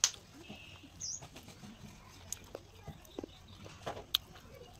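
Hand-eating sounds at a steel plate: fingers mixing rice and curry, with soft scattered ticks and two sharp clicks against the metal plate, the first and loudest right at the start, the other about four seconds in.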